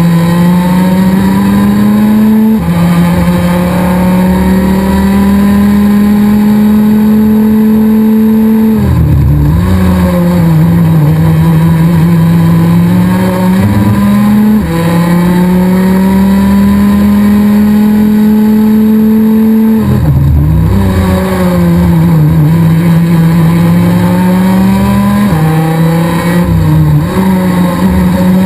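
Onboard sound of a Rotax DD2 kart's 125 cc single-cylinder two-stroke engine at racing speed, close to the microphone. The engine note climbs steadily along the straights and drops in a sudden step twice as it shifts up. Twice it falls away sharply as the driver lifts off and brakes for a corner, then climbs again.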